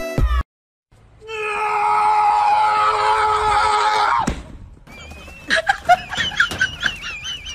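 A person's long, loud scream lasting about three seconds, sliding slightly down in pitch and cutting off abruptly, followed by quieter warbling high tones.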